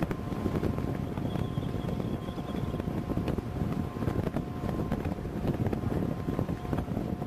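Wind buffeting the microphone on the open deck of a moving ferry, over a steady low rumble with two faint humming tones underneath.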